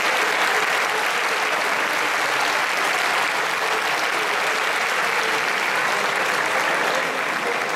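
Large audience applauding with dense, steady clapping that eases slightly near the end.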